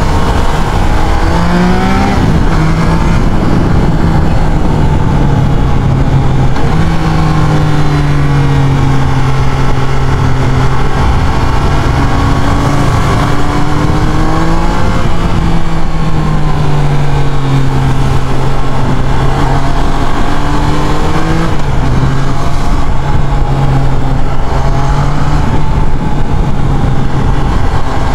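Triumph Trident 660's three-cylinder engine under way, its note rising and falling several times with throttle and gear changes, with a sharp rise in the first couple of seconds.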